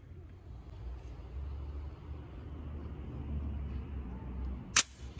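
Plastic toy propeller launcher (a spin-top shooter) firing its spinning disc: one sharp, loud snap about three-quarters of the way in, with a smaller click just after. A low, steady rumble runs underneath.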